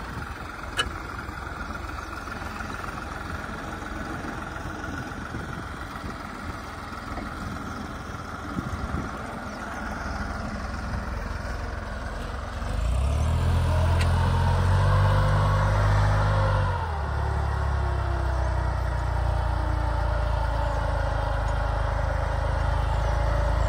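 New Holland 3630 tractor's diesel engine running under load as it pulls a disc harrow through the soil. About halfway through the engine gets louder and deeper for roughly four seconds, then settles to a steady, slightly quieter running.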